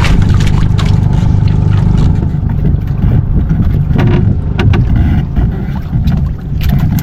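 Small fishing boat's engine running steadily at sea, with a few sharp knocks about four and a half seconds in.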